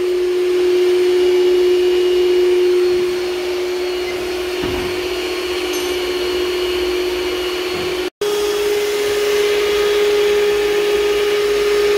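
Electric mixer whipping heavy cream, a steady motor whine. It cuts out for a moment about eight seconds in and comes back slightly higher in pitch.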